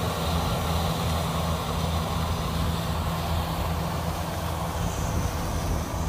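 Kubota DC60 rice combine harvester running under load as it cuts and threshes, a steady low engine hum with a dense even machine noise over it.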